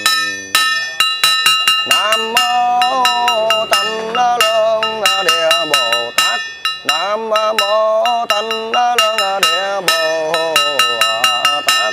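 Buddhist monk chanting a funeral liturgy in a drawn-out, sliding melodic voice while striking a small brass bowl bell held in the palm, in quick, uneven strokes several times a second; the bell's ringing tones carry on between strikes.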